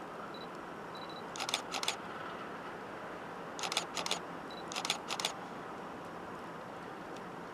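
A DSLR camera taking three still photos: short high autofocus beeps, then three shutter releases, each a quick run of mechanical clicks.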